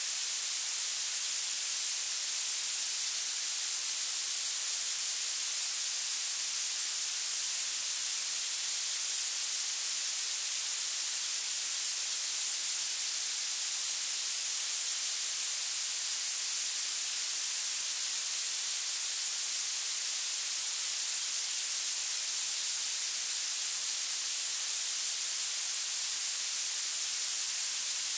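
Violet noise: a steady, unchanging hiss whose loudness rises toward the highest frequencies, so it sounds thin and sharp, with almost no low end.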